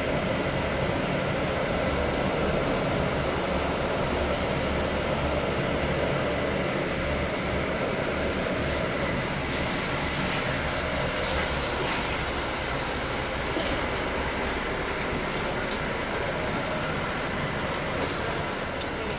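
A city bus running, heard from inside, with a steady low engine and road noise. About ten seconds in, a hiss of compressed air rises over it for some four seconds.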